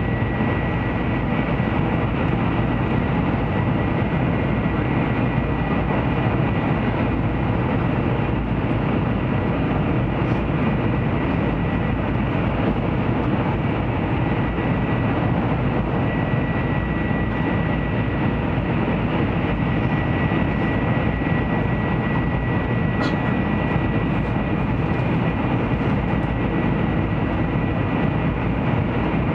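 Interior running noise of a Taiwan High Speed Rail 700T train at speed, heard inside the passenger car: a steady rushing noise with a thin, steady high tone running through it. A faint click sounds near the end.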